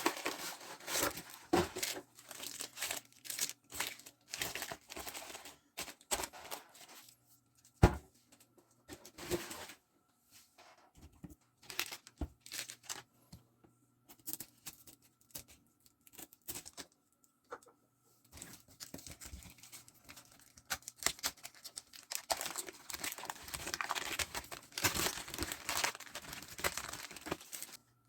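Packaging crinkling and being torn open in irregular bursts, with one sharp knock about eight seconds in. The crinkling is densest near the end.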